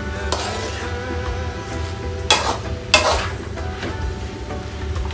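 A spatula stirring diced squash and tomatoes in a steel wok over light sizzling, with two sharp scrapes against the pan a little over two seconds in, about half a second apart.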